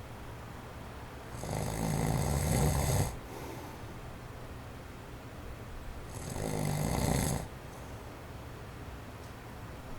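A man snoring in his sleep: two snores about five seconds apart, each a second or so long. Between them is the faint steady whoosh of an electric fan on its low setting.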